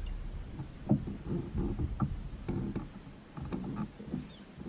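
Handling noise in a fishing kayak: irregular knocks and rattles as an angler works with a rod and reel.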